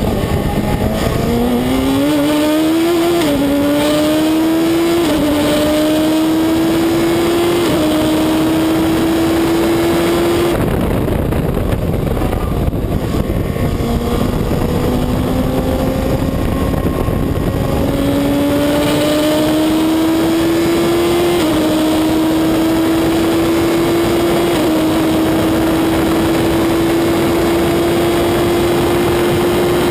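Reynard Inverter race car engine heard onboard at racing speed, pulling up through the gears: the pitch climbs and drops back at each of several upshifts. About ten seconds in the driver lifts off and the note falls, then it accelerates again through more upshifts, over a constant rush of wind noise in the open cockpit.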